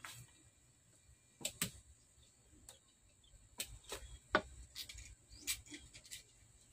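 Irregular sharp clicks and snaps, about ten in all, of a hand tool gripping and cutting at a plastic bicycle saddle.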